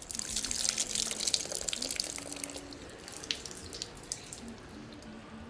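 Water pouring and splashing, heaviest for the first two seconds or so, then thinning out to scattered drips.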